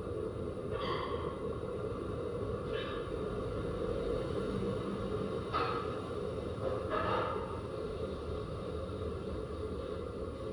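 Metal lathe running with a steady machine hum, with four brief higher-pitched noises over it.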